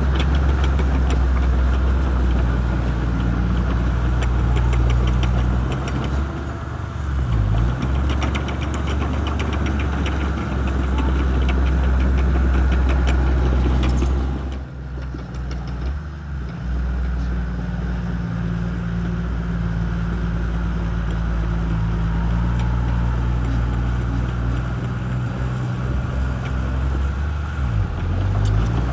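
Shantui bulldozer's diesel engine running with a steady low drone, with a fast rhythmic clatter over it in the first half. About halfway through the level drops briefly, then the engine settles back to a steady run.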